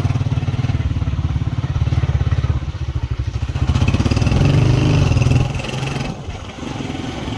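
Small Honda motorcycle engine running while riding, with a fast, even exhaust pulse. It eases off and gets quieter about five and a half seconds in.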